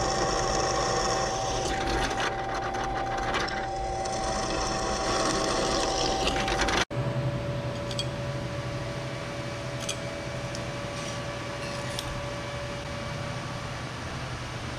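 Drill press running, its bit cutting through a steel flat bar with a steady whine. After a sudden break about halfway, a quieter steady machine hum carries on with a few sharp clicks.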